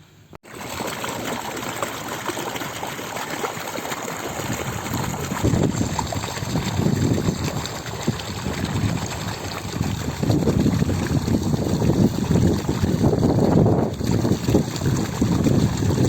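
Water sloshing and splashing in irregular surges as raw chicken pieces are washed by hand in water with turmeric powder.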